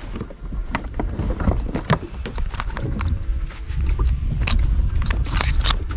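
Irregular clicks and knocks of fishing tackle being worked while a large hooked fish is fought from a kayak, over a constant low rumble.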